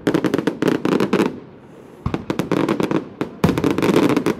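Fireworks going off in rapid volleys of sharp bangs and cracks, three bursts in a row with short lulls between them.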